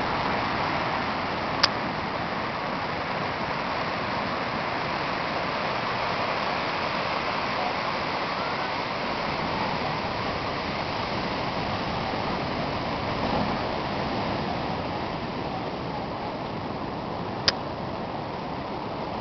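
Steady wash of ocean surf breaking on the beach, with two sharp clicks, one about a second and a half in and one near the end.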